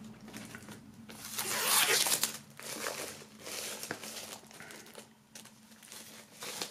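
Clear plastic shrink-wrap being peeled and torn off a vinyl LP box set, crinkling and rustling in uneven swells. It is loudest one to two seconds in and quieter near the end.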